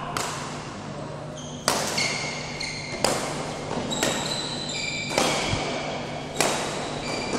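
Badminton rally: sharp racquet strikes on the shuttlecock, about six of them a second or so apart, echoing in the hall, with short high squeaks of shoes on the court between them.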